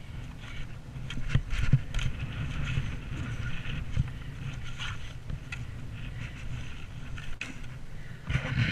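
A steel spade scraping and chopping into wet, muddy trail soil, with a few sharp knocks in the first half. Under it runs a steady low rumble of wind on the microphone.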